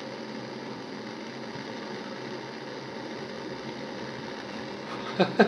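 Gas-cartridge blowtorch burning steadily with an even hiss.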